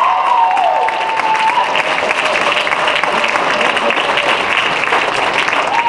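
Audience applauding steadily, with a voice whooping in the first second and a half.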